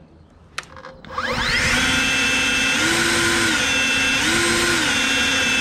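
EGO 56V 530 CFM battery leaf blower spinning up with a rising whine about a second in, then running at a steady pitch. Twice it steps up to a higher pitch for about half a second, boosted by the turbo button, and it starts to wind down at the very end.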